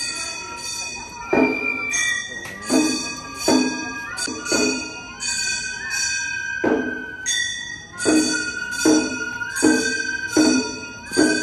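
Gion bayashi festival music from a float: a bamboo transverse flute holds long high notes that step between pitches, over about a dozen sharp, irregularly spaced strikes of small hand-held brass gongs (kane).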